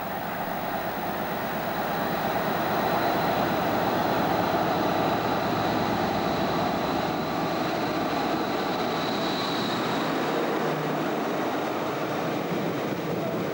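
Class 60 diesel locomotive hauling a train of hopper wagons past at speed. Its engine and wheel noise grow louder over the first few seconds and then hold steady, with a thin high whine running through it that fades after about ten seconds.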